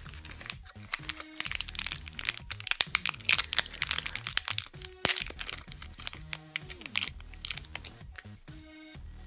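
Crinkling of a small plastic bag as it is handled and opened, loudest in the first half, over electronic background music.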